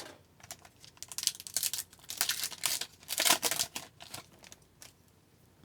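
A foil hockey card pack wrapper being torn open and crinkled in the hands, a dense crackling for a few seconds that dies away near the end.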